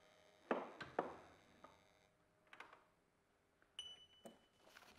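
Light clicks and taps of small objects being handled on a desk, three sharper ones about half a second to a second in, then a few fainter ones. Near the end comes a short, high metallic ping.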